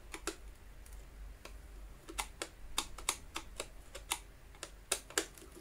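Screwdriver undoing Torx screws in the plastic cleaner-head housing of a Dyson DC50 vacuum: a string of light, irregularly spaced clicks and ticks.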